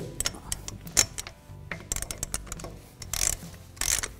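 Torque wrench on lug bolts ratcheting and clicking, with sharp clicks at the start and about a second in as bolts reach the set 95 ft-lb, and longer ratcheting bursts near the end; background music underneath.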